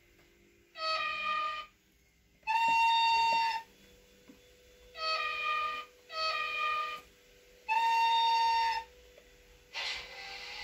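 Sound decoder in an HO-scale ETR 300 Settebello model playing its horn signal through the model's small speaker: five sustained blasts of about a second each, alternating between a lower and a higher pitch. Near the end a loud rushing, jet-like simulated motor sound starts and rises as the train sets off.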